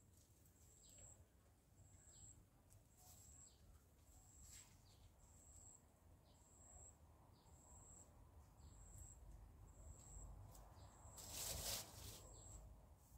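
Quiet garden ambience: an insect gives a short, high chirp repeated evenly a little more than once a second, with faint short bird calls between. A brief rustle near the end.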